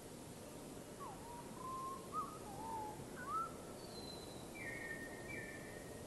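A wild songbird whistling a short phrase of gliding notes about a second in, then a few higher, thinner notes, over a steady background hiss.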